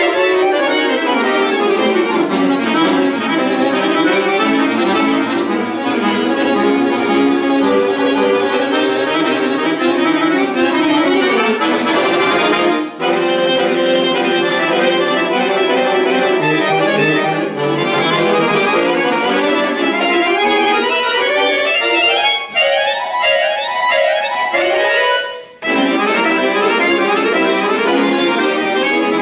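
Solo chromatic button accordion (bayan) playing a piece with many changing notes and chords, broken by two brief pauses, one about halfway and one near the end.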